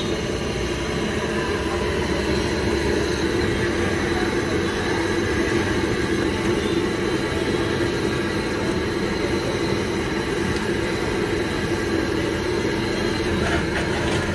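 Steady sizzling of onion bhajia deep-frying in a large kadai of hot oil, mixed with the running noise of road traffic.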